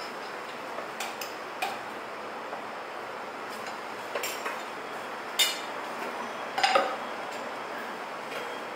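Dishes and utensils clinking now and then, a handful of short sharp clinks with the loudest two a little past halfway, over steady room noise.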